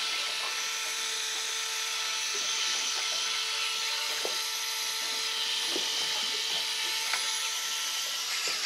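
A motor running steadily: a constant whine over a broad hiss, with a few faint clicks.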